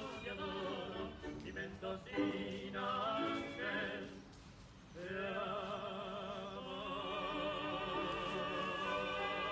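Recorded Argentine tango song: a singer over the accompaniment. The music drops away briefly about four seconds in, then the singer holds long notes with a wide vibrato.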